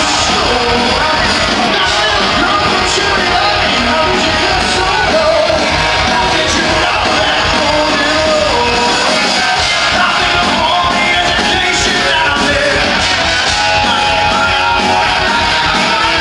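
Live rock band playing a hard rock song loudly, with electric guitar and drums and a voice singing and shouting over them.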